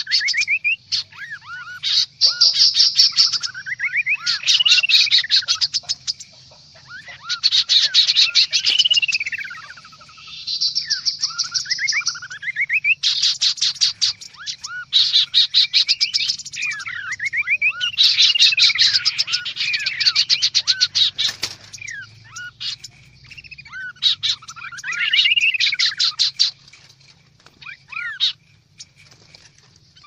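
Several kaso-kaso (chestnut-capped babblers) calling at once: bouts of rapid, high chattering note-trains mixed with looping whistles that rise and fall, each bout lasting a few seconds, with short lulls between.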